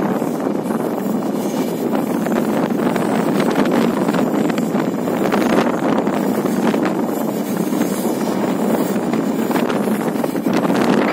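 Steady rumble of a passenger train running on the track, heard from the side of the moving train, with wind buffeting the microphone.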